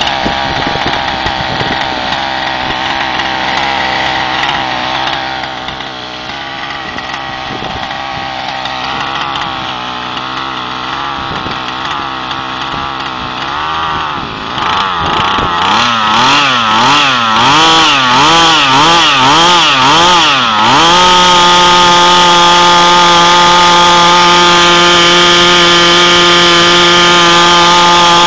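Zenoah G270RC two-stroke gasoline engine of an RC helicopter running on the ground. It holds a steady speed for about half the time, then its pitch swings up and down repeatedly for several seconds, then settles into a steady, louder note.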